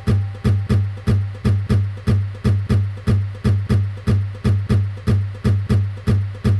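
Electronic music beat: a low, kick-like thump repeating steadily about four to five times a second, each strike dying away quickly. The percussion is built from sampled found sounds.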